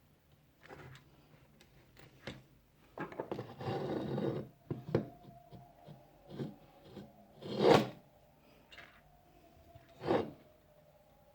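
Hands and tools working on a graphics card and its cooler bracket: a rasping scrape lasting about a second and a half, scattered light clicks, and two louder knocks, the louder one just past the middle.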